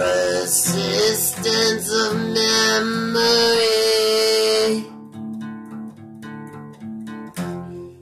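Acoustic guitar strummed with a man singing over it; his voice holds a long high note and stops about five seconds in, leaving the guitar strumming alone.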